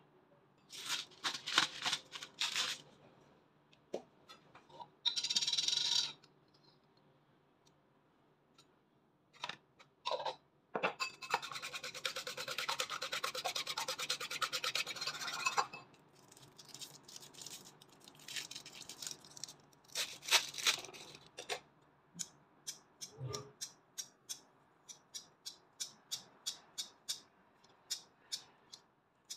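Salt grinder turned over a bowl in short rasping bursts, then a wire whisk beating eggs in a bowl in a fast, even rattle for about five seconds. In the last seven seconds, kitchen shears snip seafood into the bowl in a regular run of sharp clicks.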